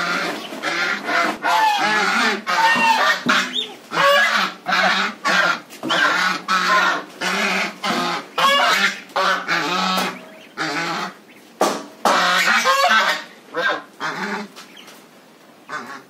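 Domestic white geese honking in a rapid run of short calls, several a second, which thin out and grow quieter over the last couple of seconds.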